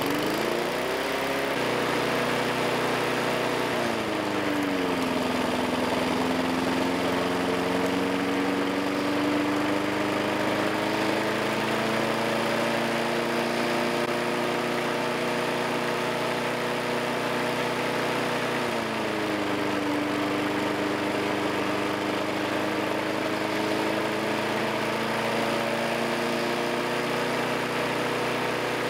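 Single-cylinder lawn mower engine catching and speeding up, then running, its speed dipping twice and slowly recovering. The engine is badly worn from sand drawn in through the air intake and has heavy blow-by.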